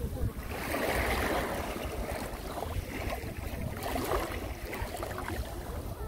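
Small sea waves lapping and washing over a pebble shore, swelling about a second in and again around four seconds, over a steady low rumble.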